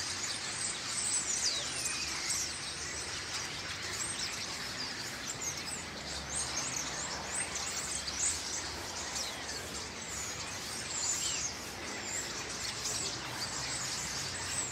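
A large flock of common starlings calling all at once, a constant din of many overlapping whistles, chirps and rattles. This is the noisy communal flocking of starlings gathering for autumn migration.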